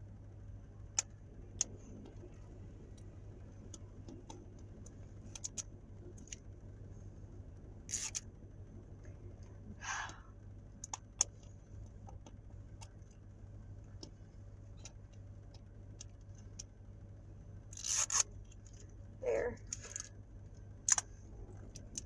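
Quiet handling of a small plastic toy ball being worked open by hand: scattered light clicks and a few brief rustling scrapes, over a low steady hum.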